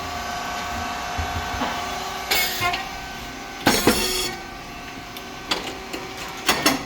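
SYP4509 rice cake popping machine running, with a steady hum from its hydraulic pump and fan. There are two loud, hissing bursts, one about two and a half seconds in and a louder one near four seconds, and a few sharp clicks near the end.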